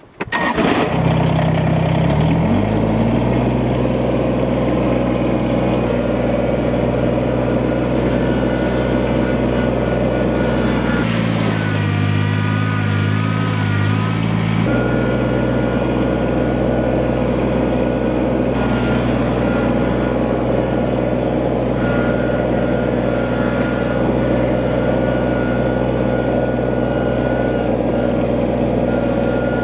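Kubota BX2370 compact tractor's three-cylinder diesel starting with the key and catching at once, then running steadily. For about four seconds partway through, the engine note changes while the front loader bucket works into a gravel pile, and later a thin steady whine runs over the engine as the tractor drives.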